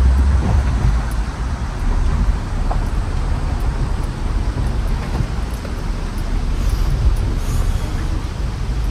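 Tata Punch driving over a rough unpaved track: a steady low engine and road rumble with an occasional light knock.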